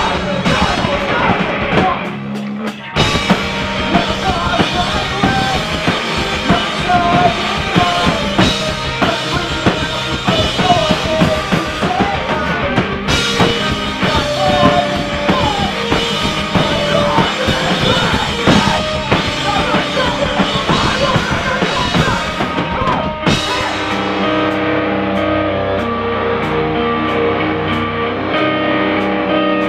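Live rock band playing with drum kit, electric guitar and vocals, cutting out for a moment near the start and then crashing back in. About 23 seconds in the drums drop out and the electric guitar plays on alone with ringing, held chords.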